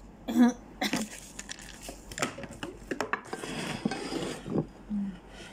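Knife and fork clinking and scraping against a plate, with dishes being handled on the table; about three seconds in comes a longer scraping rustle of just over a second as the dishes are moved.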